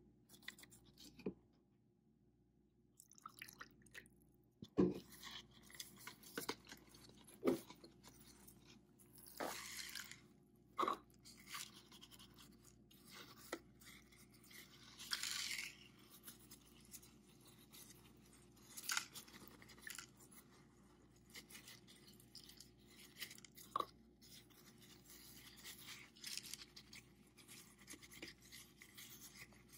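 Faint handling noises of wet filter paper, a clear plastic cup and a wooden craft stick: soft rustles and scrapes with a few light taps.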